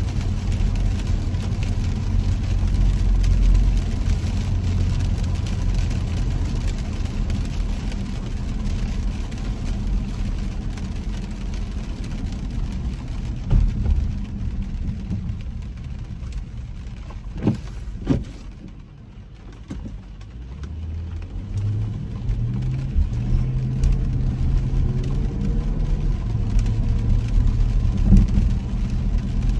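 Car driving on a wet road, heard from inside the cabin: low engine and road rumble with tyre hiss. It quietens as the car slows almost to a stop, with two sharp knocks just before, then the engine pitch climbs in steps as it pulls away.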